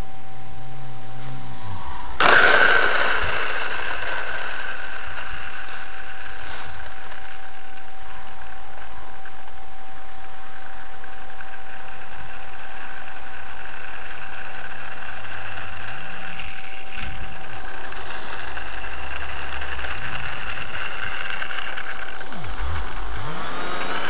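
Brushless electric motor and propeller of a radio-controlled Cessna model running, a steady whine with rushing air. The whine sets in abruptly and brighter about two seconds in, and near the end the motor's pitch begins to rise as it spins up.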